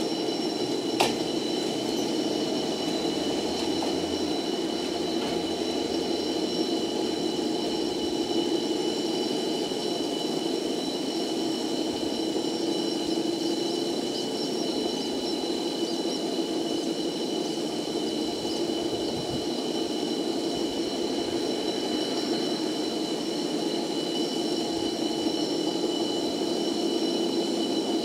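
Steady whirring of a funicular's steel haul cable running over the pulleys between the rails, with several thin, steady high-pitched squeals over it and a single click about a second in.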